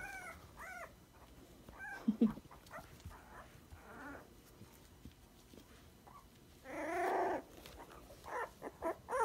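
Three-week-old dachshund puppies squeaking and whimpering in short high calls, with a brief low grunt about two seconds in and a longer, louder cry about seven seconds in, then a quick run of squeaks near the end.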